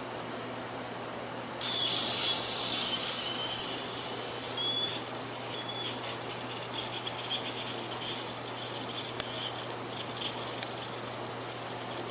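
Electric arc struck between two carbon arc-gouging rods on battery current: a sudden loud hiss about a second and a half in, then a sputtering crackle that dies down over several seconds. Brief high whistling tones come around five seconds in, and there is a sharp snap near nine seconds.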